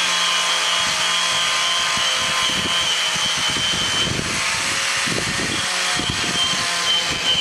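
Electric angle grinder with a sanding mop running steadily against steel plate, stripping rusty steel back to bare metal, with a constant high motor whine. Wind gusts buffet the microphone in the second half.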